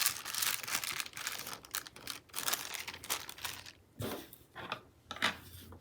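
Paper sticker sheets rustling and crinkling as they are handled, dense at first and then a few separate short crackles near the end.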